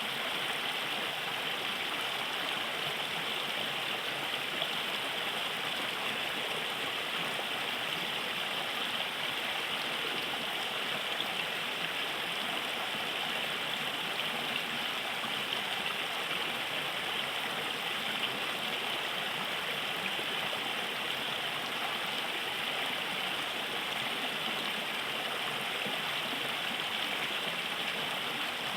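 River water flowing steadily, a continuous rushing and gurgling of the current.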